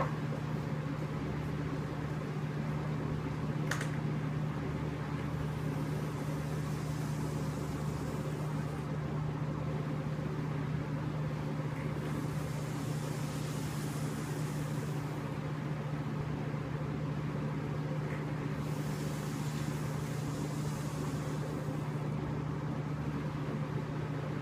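A steady low mechanical hum in the room, with three long soft airy hisses of vapour being drawn through and blown out from a Copper Phantom dripping atomizer. A single click comes about four seconds in.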